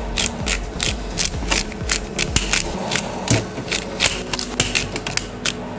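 Handheld disposable spice grinder being twisted, its grinding head giving a steady run of sharp clicks, about four or five a second.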